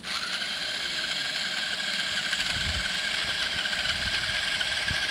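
Small geared DC motors of a homemade RC car running, a steady high whine of motors and plastic gears that starts suddenly and holds one pitch.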